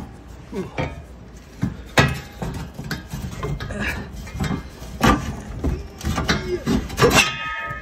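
Scattered metal clinks and knocks of hand work under a truck at the fuel tank and its strap, with sharp knocks about two seconds in, about five seconds in, and a quick cluster near the end.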